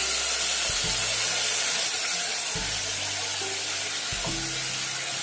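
Wet green curd-and-herb gravy hitting hot oil with whole spices in a pot and sizzling hard, a dense steady hiss that eases slightly toward the end.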